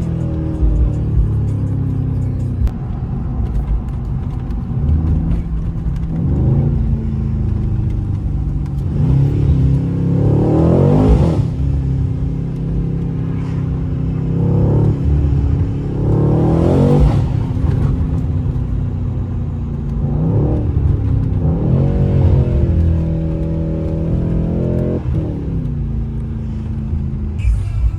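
Stock Mercedes-AMG C63 S engine under repeated acceleration: about six pulls, each a rising pitch that breaks off and drops back, over a steady low drone between them.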